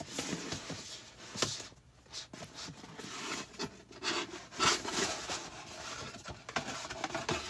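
Cardboard rubbing and scraping as a boxed product's inner box is slid out of its cardboard sleeve, with a few light knocks of the box being handled.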